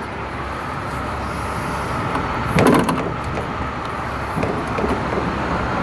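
Metal clatter from the bus's extended stop-arm hardware being handled: a short burst of knocks about two and a half seconds in and a little scraping later, over a steady vehicle rumble.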